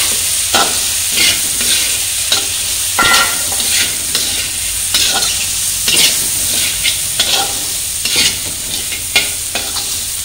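Steel spatula stirring puffed rice through the spiced onion and chana in an oiled metal kadhai, while the mixture is roasted. It scrapes the pan about twice a second over a steady frying sizzle.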